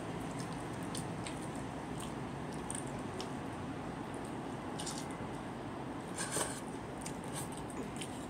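Soft, wet clicks and squishes of someone eating cooked rice by hand: fingers pressing the sticky rice, lips and mouth working on it, over a steady background hiss. A louder wet smack comes about six seconds in.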